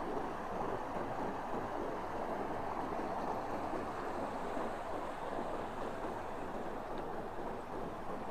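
Steady rushing of a flowing stream, an even, unbroken sound of running water.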